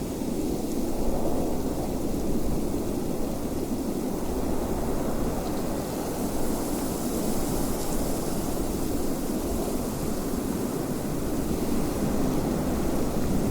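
Wind blowing steadily as a deep, low rush, with a little more hiss swelling in the middle.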